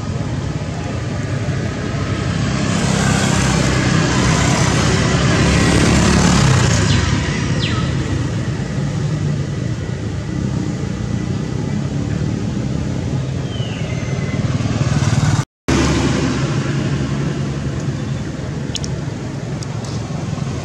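Steady road traffic noise from motor vehicles running by, with a low engine rumble throughout; the sound cuts out for a split second about three-quarters of the way through.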